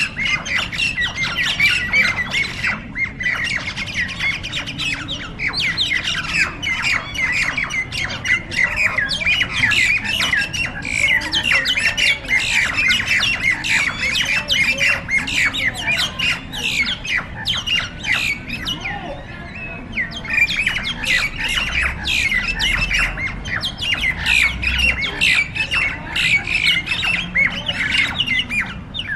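Several mynas squawking in a fight: a dense, unbroken run of rapid, overlapping falling calls.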